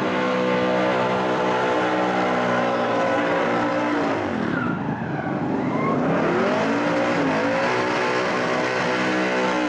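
Car engine held at high revs during a burnout, with tyre noise under it. About halfway through the revs drop sharply and climb back up, then dip and rise a few more times.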